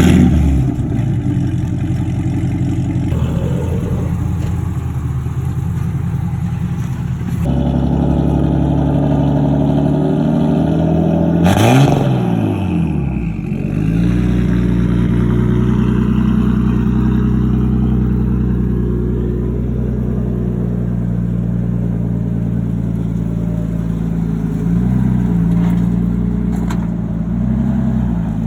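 A car engine starts and settles into a steady idle. The note steps up about seven seconds in, there is a loud surge with the pitch dipping and recovering around twelve seconds in, and there are two small revs near the end.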